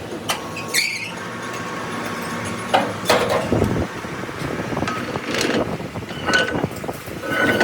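Irregular knocks and clatter of metal parts being worked, with a few brief ringing tones, the loudest knock about three seconds in.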